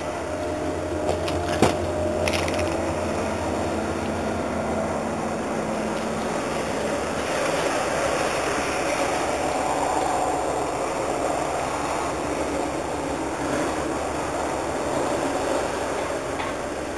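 A steady, loud mechanical rumble, low and even, with a faint hum and a single sharp click in the first couple of seconds. This is the unexplained outdoor noise the recordist set out to film.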